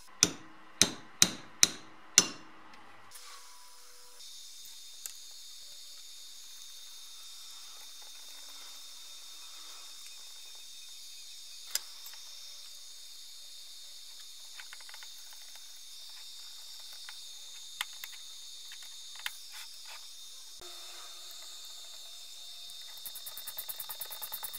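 Five sharp metal knocks with a short ring, within about two seconds, as steel vice parts are fitted together on the main screw. Then a faint steady hiss with a few isolated clicks. Near the end comes a fast run of ratchet clicks as a socket wrench turns the nut in the vice's swivel base.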